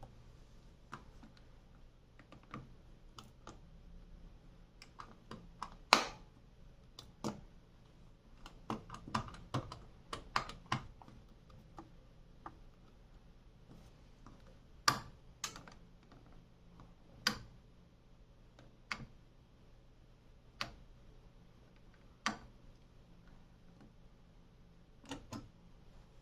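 Indesit WES9X washing machine being handled: irregular sharp clicks and light knocks, the loudest about six seconds in and a quick cluster around ten seconds, over a faint steady low hum.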